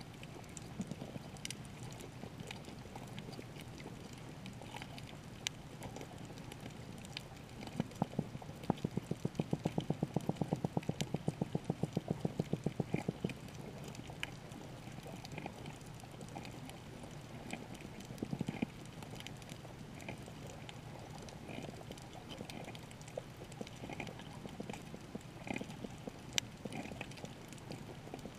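Underwater sound on a coral reef: a steady low wash with scattered sharp clicks and crackles. About eight seconds in, a rapid, even run of low pulses, about seven or eight a second, lasts some five seconds and is the loudest thing heard.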